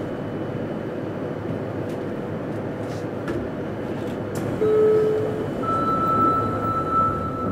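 Cabin running noise of a JR Kyushu 303 series electric train on the Fukuoka subway: steady rail rumble. Past the halfway point the Hitachi VVVF inverter adds a short lower tone, then a steady high whine, as the train brakes into a station.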